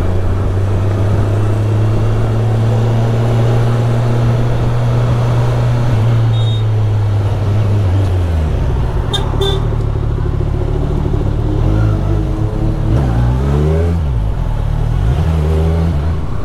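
Kawasaki Z1000SX's inline-four engine running steadily on the road, dropping to a lower pitch about halfway through as the bike slows in traffic, then rising and falling briefly near the end. A couple of short, faint high toots come around the middle.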